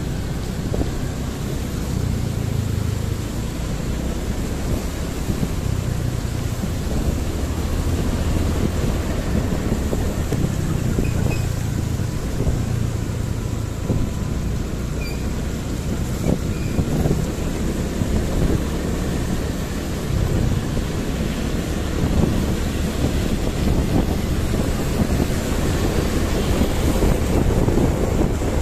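Wind buffeting the microphone of a moving motorbike, over a steady low rumble of the engine and road.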